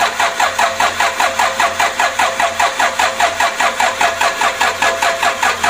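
Toyota 2KD-FTV four-cylinder common-rail diesel cranking on its starter motor in an even rhythm of about six beats a second without firing. The fuel has not yet come up to the injectors, and the battery, which the mechanic says can't hold up, is being run down by the cranking.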